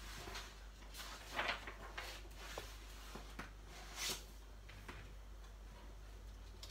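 Paper pages of a colouring book being turned and smoothed flat by hand: a series of soft rustles and swishes, the loudest about a second and a half in and again about four seconds in.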